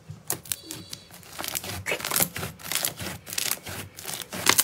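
Thick slime squeezed and pressed by hand, giving a dense run of irregular sticky crackles and clicks.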